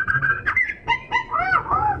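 Oriental magpie-robin singing vigorously: a held whistled note, then about a second in a run of quick arched notes that rise and fall. This is the kind of loud song played as a lure to rouse other magpie-robins.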